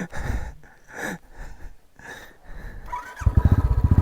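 A motorcycle engine starts running about three seconds in with a quick, even putter, after a few faint scuffs and knocks.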